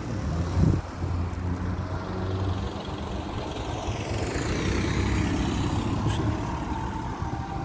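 Street traffic: a motor vehicle's engine running steadily, its sound swelling and then fading around the middle as a car passes.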